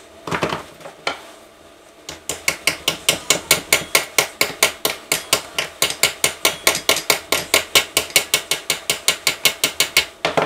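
Flat-bladed metal scraper worked in quick short strokes against the gasket face of the Suzuki DR-Z400's aluminium crankcase, a sharp scrape-click about five times a second, cleaning the mating surface before the new generator cover gasket goes on. One or two single scrapes come in the first second before the steady run starts.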